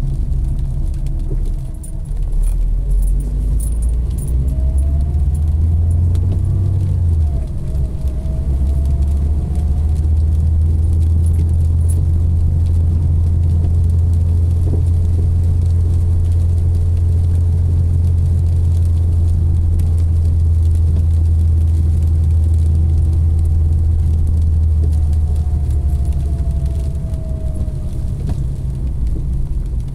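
A car driving on a wet road, heard from inside the cabin: a steady low engine and tyre rumble. A faint whine rises a few seconds in and falls again near the end, and small clicks and rattles sound now and then.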